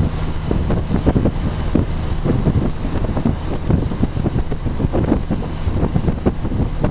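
Loaded Kenworth logging truck's diesel engine running at a steady speed, with frequent irregular rattles and knocks throughout.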